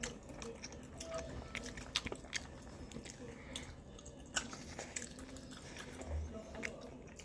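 A person chewing and biting a hot Korean hot dog close to the microphone, with scattered small mouth clicks and crunches. There is a single low thump about six seconds in.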